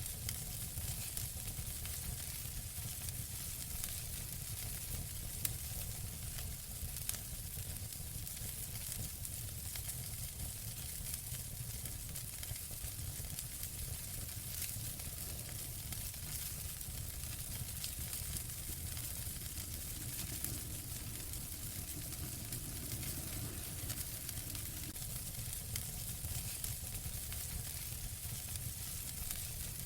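Wood fire burning in a fireplace: a steady hiss and low rumble of flames with continual fine crackling and a few sharper pops.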